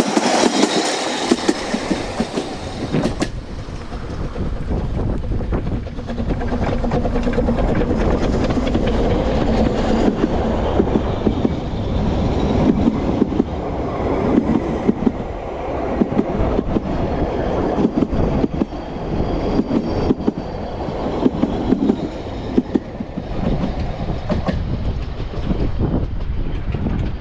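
Ffestiniog Railway narrow-gauge steam train running steadily, a continuous rumble of wheels with a clatter over the rail joints.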